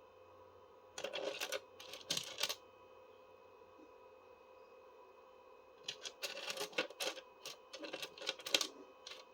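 Small pieces of rough opal clicking and rattling against each other as they are handled, in two spells of quick clatter.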